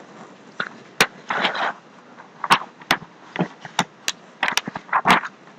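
Irregular sharp clicks, about eight over a few seconds, two of them in a quick pair near the middle, with short rustling noises between: a computer mouse being clicked.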